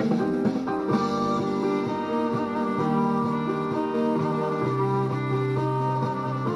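Music playing: an instrumental passage of guitar-led song with plucked strings and sustained notes, no singing.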